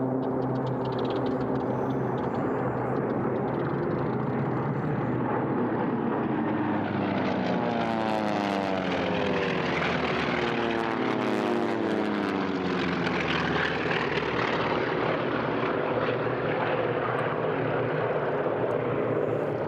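Piston-engine propeller airplane flying past, its engine and propeller drone swelling to a close pass about eight to twelve seconds in, with a sweeping change of pitch as it goes by.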